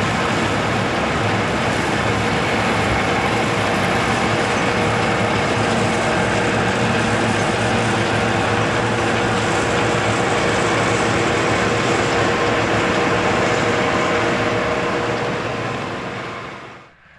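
New Holland combine harvester running steadily under load, a continuous mechanical drone with a few steady tones. It fades away near the end and cuts off.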